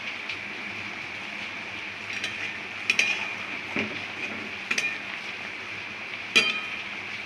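Paneer gravy simmering in a pan with a steady sizzle, while a utensil stirs it and clinks against the pan about five times, the sharpest about three seconds in and near the end.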